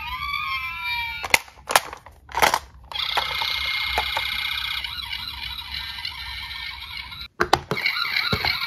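Battery-powered toy ambulance's electronic siren. A slow wail fades out in the first second, followed by a few sharp plastic clicks. From about three seconds in a fast warbling siren sounds, cuts off abruptly near the end, and a different wavering siren tone starts again.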